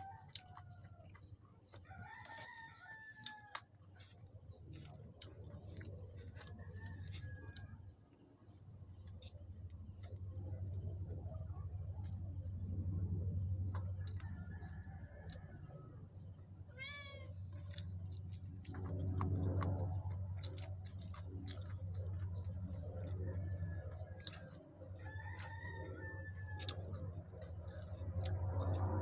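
Roosters crowing several times in the background, each crow a short curved call, over small clicks and smacks of close-up eating and a steady low hum.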